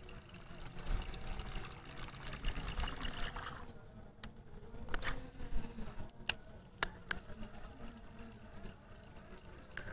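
Steady trickling and pouring of water that cuts off suddenly a few seconds in, followed by a few sharp, separate clicks.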